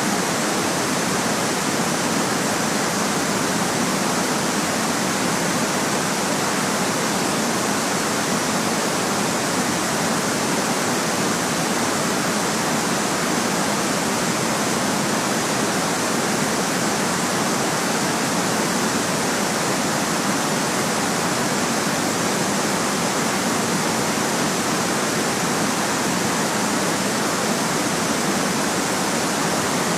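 Steady white noise: an even, unchanging hiss with little bass.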